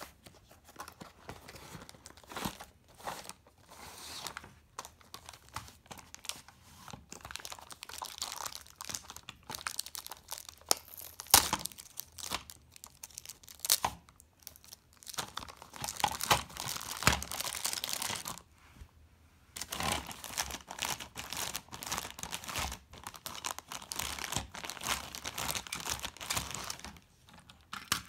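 Cardboard toy box and plastic packaging being opened and unwrapped by hand: irregular crinkling and tearing of the plastic bag around a toy train, with a few sharp clicks in the middle.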